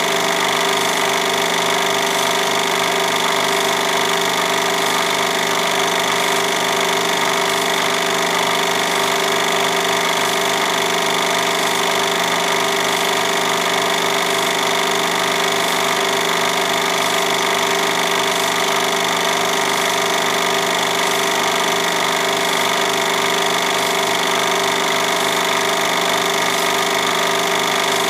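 Film projector running steadily: motor hum with a fast, even mechanical chatter from the film-advance mechanism.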